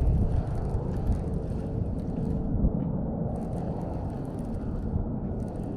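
A steady low rumbling noise with faint crackles over it.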